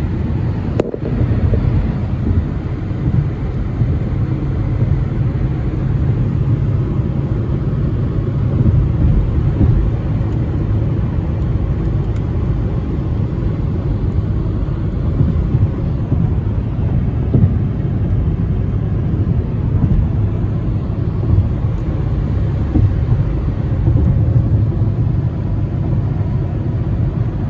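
Steady low rumble of a car on the move, its road and engine noise running evenly with no breaks.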